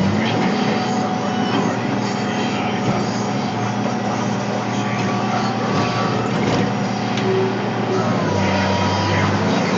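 Caterpillar 525B skidder's diesel engine running steadily as the machine travels, heard from the operator's cab.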